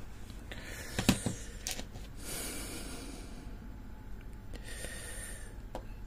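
Handling noise from a brass lock on a tray: a sharp click about a second in and a lighter one just after. Then two long, soft breaths out through the nose.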